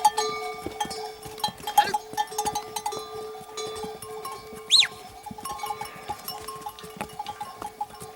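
Livestock bells ringing steadily with many small clinks, and one short rising call about halfway through.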